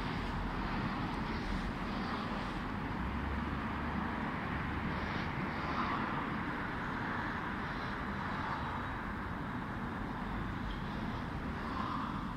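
Steady hum of city road traffic.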